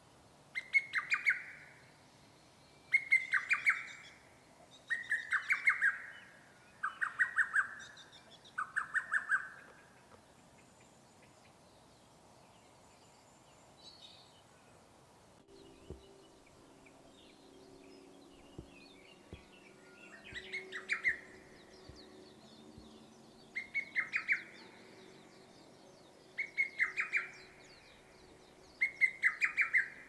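Lesser cuckoo singing its rapid staccato phrase of five or six sharp notes, repeated about every two seconds. Five phrases come in the first ten seconds, then a pause of about ten seconds, then four more.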